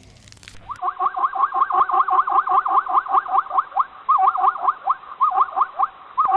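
An animal calling in a fast, rapid series of short pitched notes that swoop up and down, about six a second, with a few brief breaks, starting abruptly under a second in.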